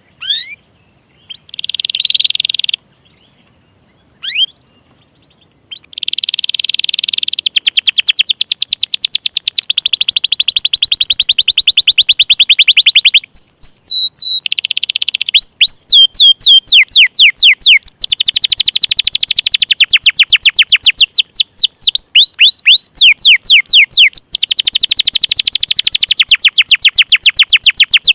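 Domestic canary singing: a few short rising notes and brief buzzy bursts in the first six seconds, then a continuous song of fast trills, each a rapid run of the same upward-sweeping note, switching to a new trill every few seconds.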